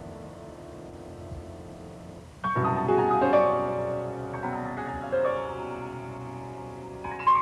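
Slow piano music: a held chord dies away, then about two and a half seconds in a loud chord is struck and several single notes follow, each ringing and fading, with another strike near the end.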